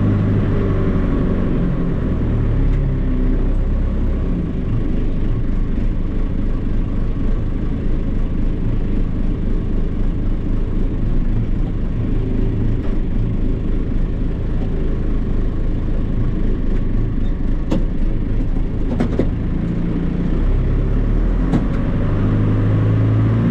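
John Deere 2755 tractor's diesel engine running steadily, heard from inside the cab as the tractor is driven, its pitch shifting a little. A few light clicks come past the halfway point.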